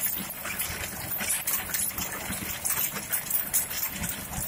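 Tractor-mounted trencher digging a trench through soil, with the tractor engine running under an irregular crackling and scraping of the cutting teeth in the earth.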